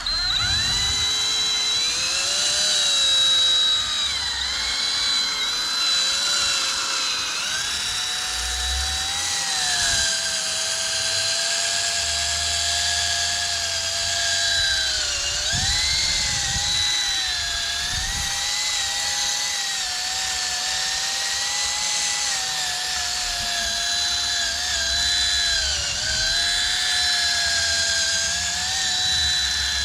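A cordless drill runs continuously with a wet 1000-grit sanding pad, fine-sanding a cloudy plastic headlight lens. Its motor whine dips and recovers in pitch several times as the load changes.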